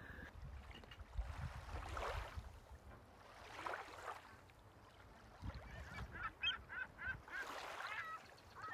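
Faint bird calls: a quick run of short, honking notes about two-thirds of the way in and another call near the end, over a few soft swells of rushing noise.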